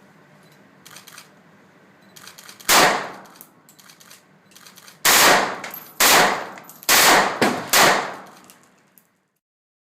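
Heckler & Koch firearm fired in single shots: one about three seconds in, then five more in a quick string roughly half a second to a second apart, each shot ringing out briefly. Quieter clicks and clangs of handling come before the first shot, and the sound cuts off abruptly near the end.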